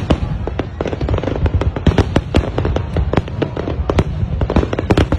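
Aerial fireworks display: many shells bursting overhead in a rapid, continuous string of bangs, several a second.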